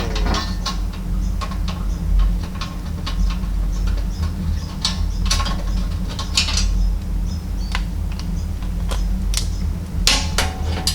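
Socket ratchet clicking as bolts are run into 4 mm steel bash plates, with scattered metal clinks and knocks from handling the plates, over a steady low hum.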